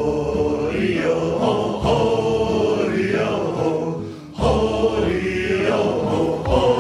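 Intro theme music of massed voices chanting or singing in sustained, choir-like tones, in two phrases; the second phrase begins about four and a half seconds in.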